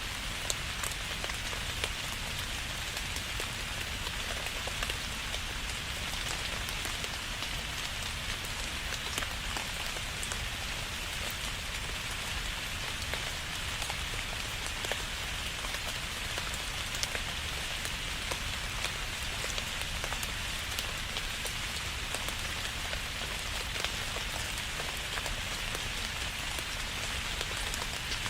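Steady rain falling on a surface, an even hiss with many individual drops ticking through it.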